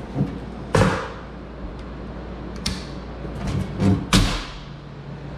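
Two sharp thumps with a short ringing tail, about a second in and again near four seconds, with a few lighter clicks and knocks between them. A steady low hum starts just after the second thump.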